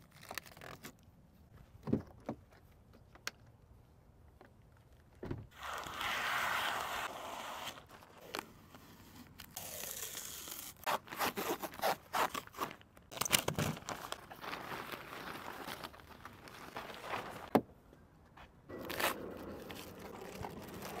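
Protective film and paper wrapping being peeled and torn off a new car's panels and glass, crinkling and tearing in spells, with a few sharp clicks between them. Near the end a cardboard door-panel protector is pulled away, scraping.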